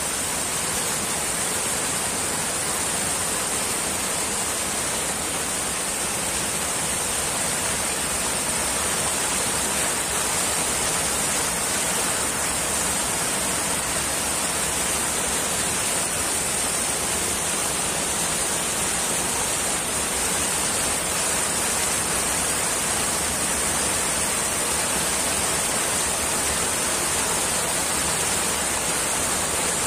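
Floodwater rushing and pouring over a road embankment in a steady, continuous rush of churning water.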